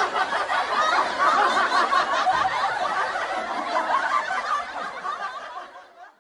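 Laughter, which fades away near the end and then stops abruptly.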